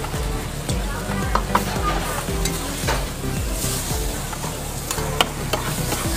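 Fried noodles sizzling on a hot teppanyaki griddle, with a metal spatula scraping and clicking against the griddle as the noodles are lifted into a bowl. Sharp knocks stand out about a second and a half in and again near the end.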